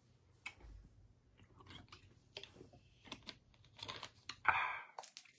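Close-up chewing of airy, crunchy corn puff snacks: a scatter of small crunches and clicks, with a short louder burst of noise about four and a half seconds in.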